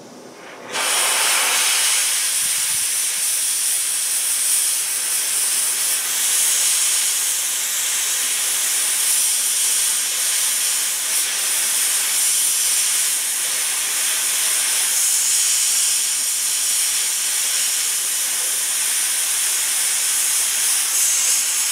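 Oxy-fuel cutting torch cutting 16-gauge sheet steel: a loud, steady hiss that starts suddenly about a second in.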